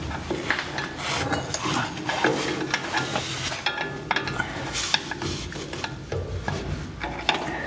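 Irregular metallic clinks, knocks and scraping as the driveshaft's rear universal joint is worked into the rear differential yoke, with some parts ringing briefly.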